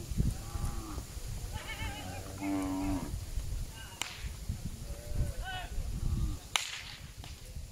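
A herd of cattle mooing, several calls one after another through the first six seconds. Two sharp cracks, about four and six and a half seconds in.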